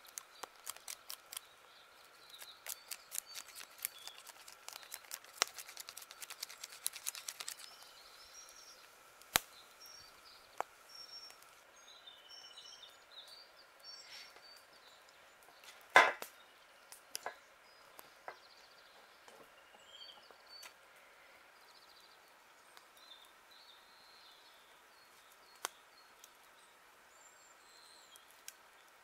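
Small wood fire crackling in a folding camp stove: irregular sharp snaps, thick for the first several seconds and then sparse, with one louder knock a little past halfway.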